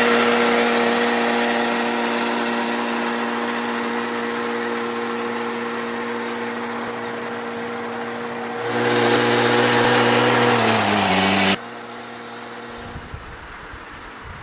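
Small engine of a riding rice transplanter running steadily, getting louder about nine seconds in, then dropping in pitch before it cuts off abruptly; a quieter steady rushing noise follows.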